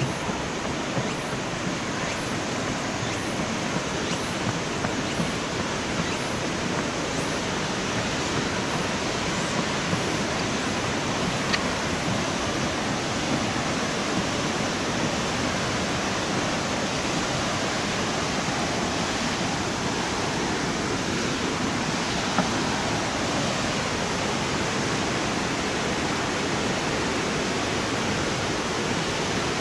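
A steady, even rushing noise with no tone to it. Faint high ticks come about once a second during roughly the first ten seconds.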